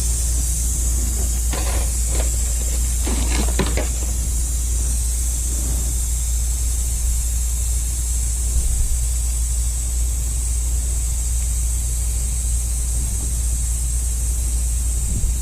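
Steady low hum and high hiss, with a few seconds of rustling handling noise near the start.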